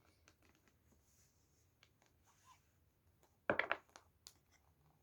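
Tarot cards being handled: faint soft clicks and rustles, then a brief cluster of quick card snaps about three and a half seconds in, with one more click shortly after.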